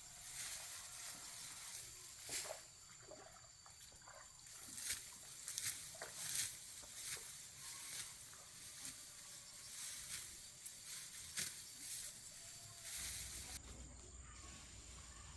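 Dry rice stalks rustling and crunching as they are cut and gathered by hand, in irregular crisp strokes, over a steady high buzz of insects.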